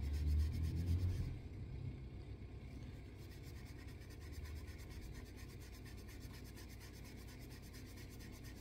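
Steel wool rubbing against a straight razor's steel, louder for the first second or so and then fainter and steady.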